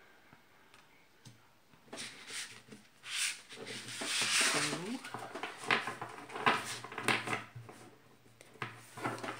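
Irregular rustling and crinkling as packaging is handled, from about two seconds in until shortly before the end.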